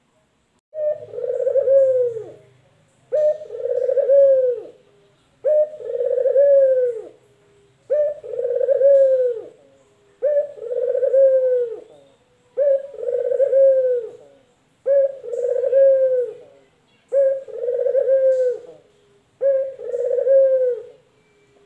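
Male ringneck dove (puter) cooing in a steady series: nine long coos, one a little over every two seconds. Each coo opens with a short note and drops in pitch at the end.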